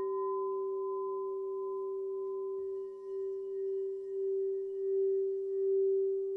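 Singing bowl struck and ringing with one strong steady tone and fainter higher overtones. About two and a half seconds in there is a soft knock, after which the tone wavers in a slow regular pulse and gradually swells.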